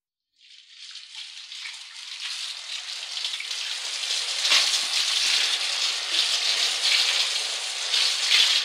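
A rushing, water-like hiss fades in from silence and builds to a steady level over the first few seconds.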